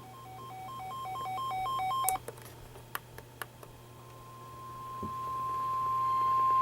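A weather radio receiver's alert alarm alternates between two pitches about three times a second, getting louder, and stops after about two seconds with a few sharp clicks. After a short gap a single steady alarm tone begins, the NOAA Weather Radio warning alarm tone that comes before a warning message, and grows steadily louder.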